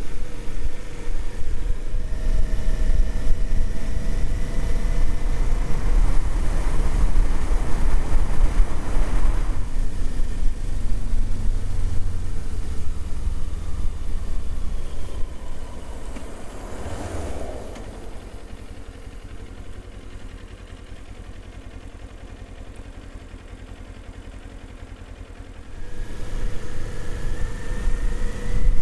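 Kawasaki Z400 parallel-twin motorcycle under way, its engine note rising as it accelerates, mixed with wind noise. A little past halfway it drops to a much quieter idle for about eight seconds, then pulls away with the engine revving up again near the end.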